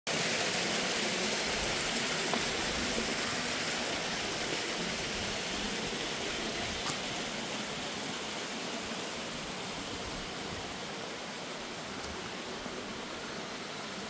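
Steady rush of flowing stream water, slowly fading, with a couple of faint taps.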